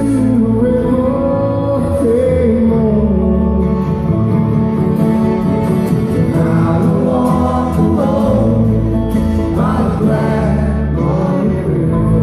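Live acoustic bluegrass band playing: banjo, mandolin, fiddle, acoustic guitar and upright bass, with voices singing.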